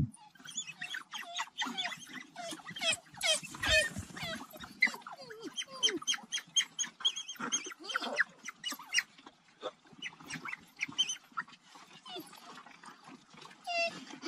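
A pack of African wild dogs, adults and pups, giving many short, high-pitched twittering calls and squeals that overlap in a busy chatter, thinning out toward the end.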